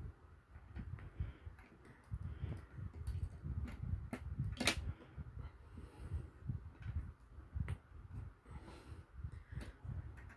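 Small plastic building bricks being handled and pressed onto a brick model, with scattered light clicks and one sharper click about four and a half seconds in, over a low, uneven rumble.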